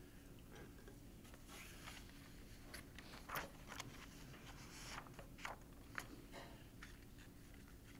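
Near silence: room tone with a scatter of faint clicks and rustles, the loudest about three and a half seconds in and again at six seconds.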